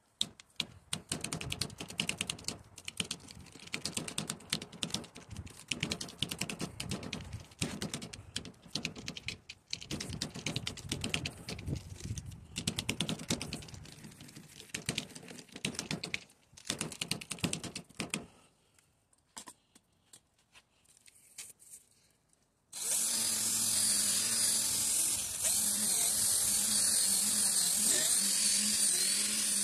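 Abrasive sanding disc scratching over a plastic headlight lens with an irregular crackle, sanding off the old oxidised surface. It stops for a few seconds. Then, about three-quarters of the way through, a cordless drill driving a sanding disc starts suddenly and runs steadily and loudly against the lens.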